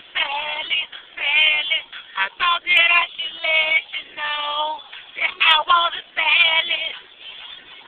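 A woman singing a pop song in short phrases, with some held notes and brief gaps between lines.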